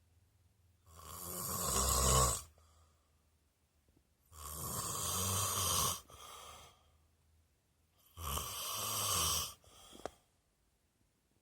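A sleeping man snoring: three long snores, each about a second and a half with a low buzz, coming about every three and a half seconds. A shorter, softer breath follows the second and third snores.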